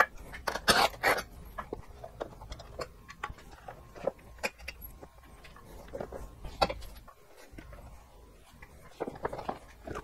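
Scattered light clicks, taps and rattles of hands handling the plastic tail section and rear fender of a Honda CRF250L dirt bike, with a few sharper knocks about a second in and again past six seconds.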